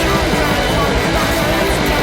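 Loud rock music with guitars, playing without a break.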